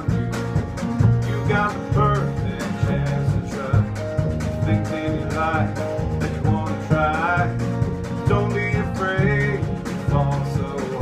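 A small acoustic country band playing live: steel-string acoustic guitars, an upright bass and light percussion keep a steady beat under a male lead vocal.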